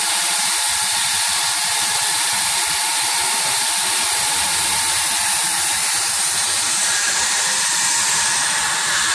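HIGHTEX S700 hot air welding machine running, its hot air nozzle blowing a steady hiss while it welds a tape over a butt seam in coated fabric.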